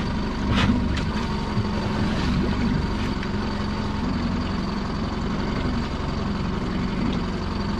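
Small boat's motor running steadily, with a couple of knocks about half a second in, as a lobster pot is hauled.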